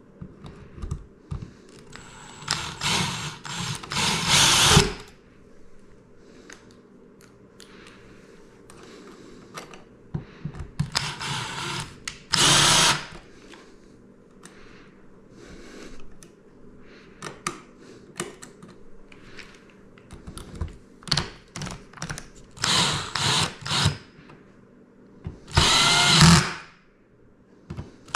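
Cordless drill/driver running in short bursts, about four runs of a few seconds each, driving screws to fasten a ceiling light's metal mounting bracket and box, with small clicks and handling noise between the runs.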